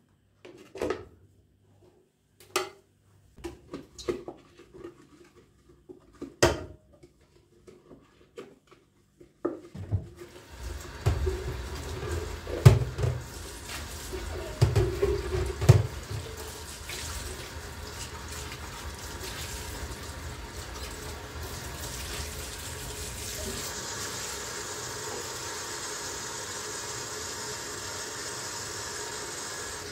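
A few scattered knocks and clicks, then from about ten seconds in a kitchen tap runs steadily into the sink, with a few louder knocks in the first seconds of the running water.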